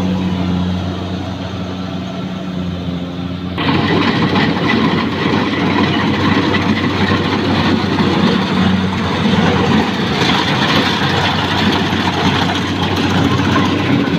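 Rice harvester's engine running with a steady hum. About three and a half seconds in, a much louder, dense rushing clatter suddenly comes in and continues over the engine.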